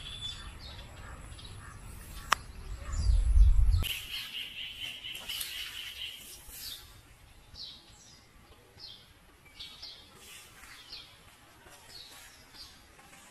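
Birds chirping and calling, with a rapid trill about four seconds in and scattered short chirps after it. For the first four seconds a low rumble runs underneath, loudest just before it cuts off, and there is one sharp click about two seconds in.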